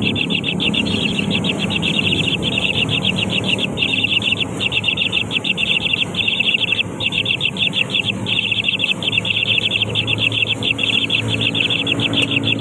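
Nestling birds begging in the nest: rapid, high chittering calls in runs of about a second, broken by brief pauses.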